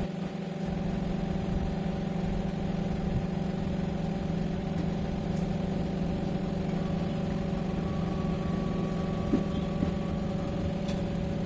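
Automated tyre-changing machine running with a steady hum as it separates a motorcycle tyre from its alloy rim.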